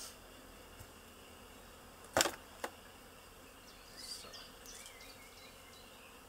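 Honeybees buzzing steadily around the hives, with two sharp knocks about two seconds in.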